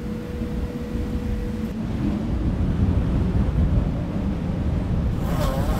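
Rumbling whoosh sound effect of an animated logo intro, a dense low rush that swells gradually louder.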